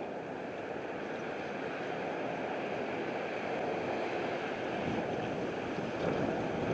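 Strong wind blowing in a steady rush, building slightly toward the middle.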